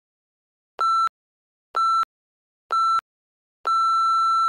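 Workout interval timer beeping the countdown: three short electronic beeps about a second apart, then one longer beep of the same pitch marking the end of the work interval.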